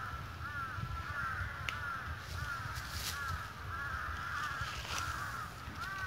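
Birds calling over and over outdoors, short arched notes repeating about twice a second, over a steady low rumble.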